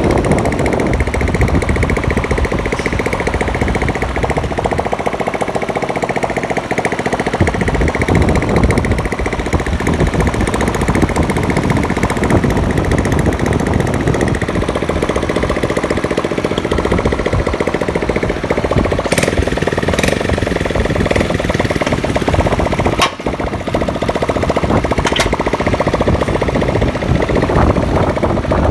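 A small engine runs steadily with a rapid pulsing beat. A few sharp clicks sound over it in the last third.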